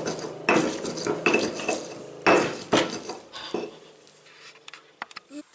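Stone pestle grinding and knocking in a stone mortar (cobek and ulekan), mashing chilli and garlic into sambal: a few sharp strokes over the first three seconds or so, then only light clicks.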